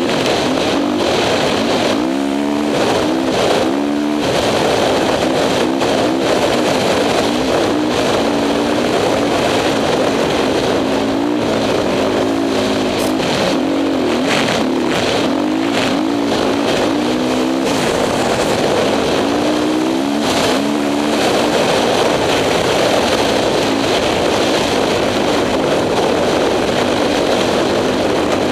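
Honda CRF450 single-cylinder four-stroke dirt bike engine under way, revving up and down again and again as the throttle is worked, over a steady hiss.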